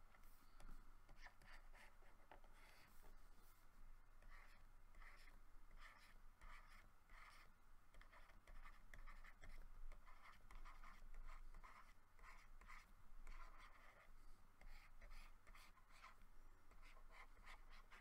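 Faint scratching of a pen on a drawing surface: many short, irregular strokes, like sketching.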